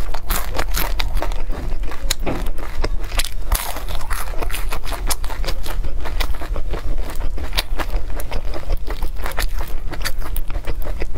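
Close-miked crunchy chewing of a crisp-shelled cigar shrimp roll: a fast, irregular run of sharp crackles as the crispy shell breaks between the teeth.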